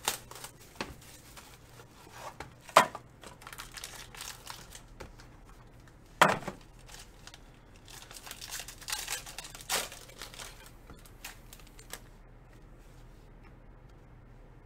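Foil trading-card pack wrapper being crinkled and torn open by hand, with sharp crackles about three seconds in and again about six seconds in, and a busier stretch of crinkling a little later.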